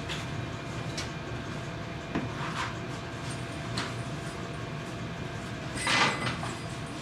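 A few light clicks and knocks of things being handled, then a short scraping rustle about six seconds in, over a steady low hum.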